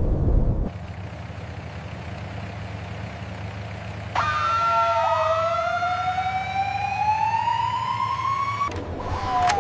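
Siren wailing in one slow rising sweep over a steady low engine drone, after a short low rumble at the start; another falling wail begins near the end.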